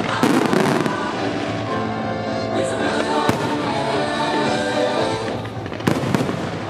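Fireworks display: aerial shells bursting with sharp bangs and crackle, a loud burst at the start and more bangs about three seconds in and twice near the end. Music plays throughout.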